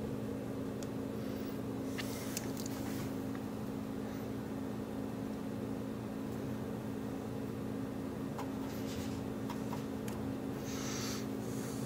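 Metal pliers scraping and clicking against bismuth crystals in a small steel measuring cup, in short bursts about two seconds in and again near the end, over a steady low hum.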